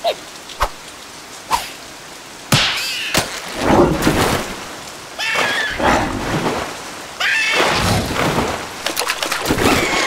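Cartoon sound effects over steady rain: a few short clicks, then loud splashing, crashing noise with shrill, bending squeals from the cartoon characters.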